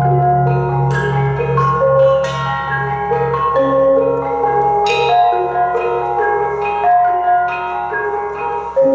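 Gamelan playing: bronze metallophone keys and kettle gongs struck with mallets in a quick melody of ringing notes. Underneath, a large hanging gong keeps humming with a low tone that swells and fades about twice a second as it dies away.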